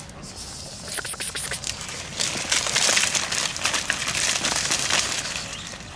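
Dry dead plant stalks crackling and snapping as they are trampled and pushed through. A dense run of crackles is loudest in the middle and eases off near the end.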